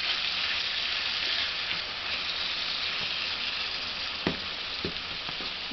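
Strips of beef sizzling steadily in a hot frying pan while being stirred with a metal fork, with two sharp clicks of the fork against the pan near the end.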